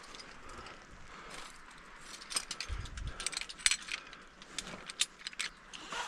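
Metal climbing gear clinking: carabiners and rope hardware being handled, giving a run of sharp metallic clicks and jingles, with a short low thud about three seconds in.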